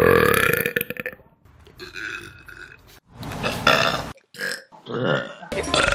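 Loud human burping: one long burp dies away about a second in, followed by several shorter burps.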